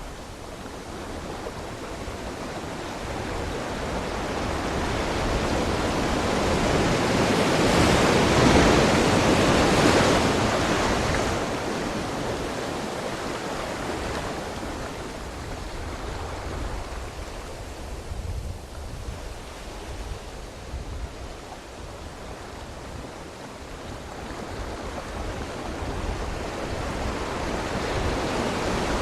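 Sea waves breaking and washing on the shore as a steady rush. The surf swells to a loud peak about a third of the way in, ebbs away, then builds again near the end.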